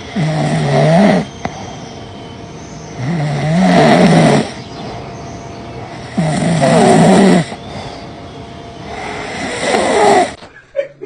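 Loud snoring: four long rasping snores, each about a second long and roughly three seconds apart, over a steady background hum.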